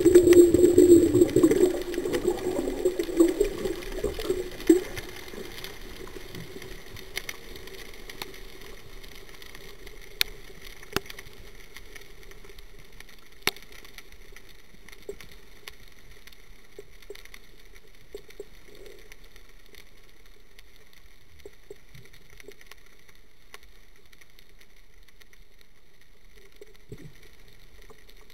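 Underwater sound as a diver descends: water churning loudly over the first few seconds, then a faint steady hum with sharp clicks now and then.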